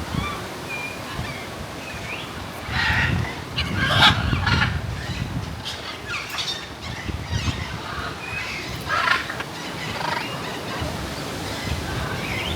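Birds calling: a series of short, harsh calls, the loudest about three and four seconds in and again around nine seconds, over wind rumbling on the microphone.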